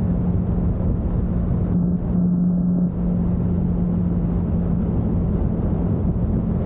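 Motorcycle engine running at a steady cruising speed, its drone holding one pitch, under heavy wind and road noise.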